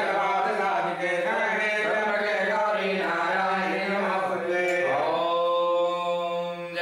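Male voices chanting Vedic Sanskrit mantras in a steady recitation on a low, even pitch, moving into a long held note about five seconds in.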